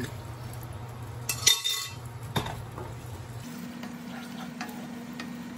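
Boiled vegetables tipped from an aluminium pressure cooker into a cast-iron skillet, with a few metal knocks about a second and a half in, then a wooden spatula stirring the thick mixture in the pan. A steady hum runs underneath and shifts to a higher pitch past the middle.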